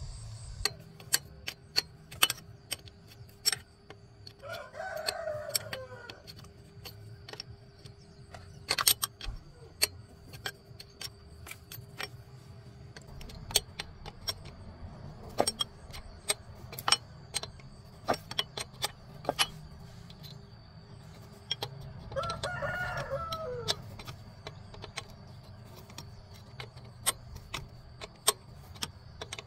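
A steel spanner clinking and clicking against the rusty nuts and fittings of a diesel high-pressure fuel pump as it is worked loose, in many sharp, uneven knocks. A rooster crows twice, about five seconds in and again a little past twenty-two seconds.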